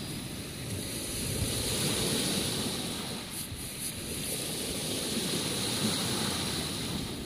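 Steady wash of waves breaking on a pebble shore, with wind buffeting the microphone.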